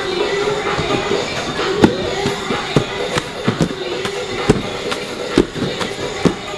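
Sharp, irregular smacks and knocks, about one or two a second, over a steady background with a wavering hum.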